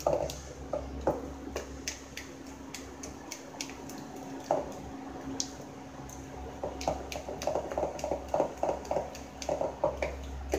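Metal spoon beating thick gram-flour batter for dhokla in a glass bowl: irregular clinks of the spoon against the glass mixed with wet squelches of the paste, thinning out for a couple of seconds in the middle before picking up again.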